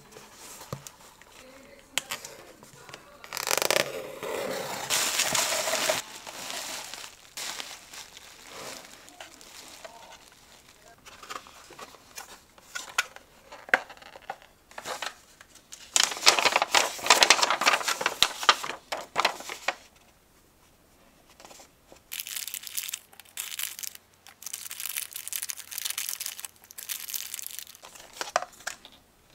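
Hands opening a taped cardboard mailer and unpacking small cardboard boxes: packing tape slit and torn, and paper and cardboard crinkling and rustling in several loud bursts, with small clicks of handling between them.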